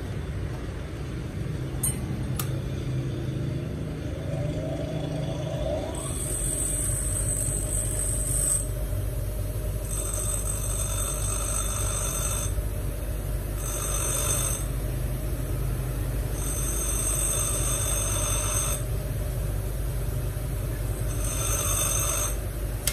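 Bench grinder running with a steady motor hum, while a steel bar is pressed to the wheel in five bursts of high grinding hiss, each one to two and a half seconds long, grinding off the burr left on the freshly cut edge.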